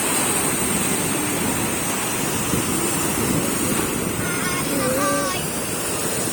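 Sea surf washing steadily on the beach. A voice calls out briefly about four seconds in.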